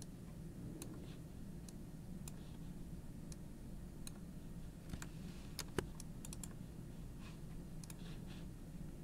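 Scattered clicking of a computer mouse, a few light clicks with a sharper one a little before six seconds in, over a steady low hum.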